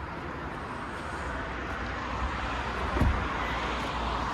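Steady background traffic noise, a rushing sound with a low rumble, with one dull thump about three seconds in.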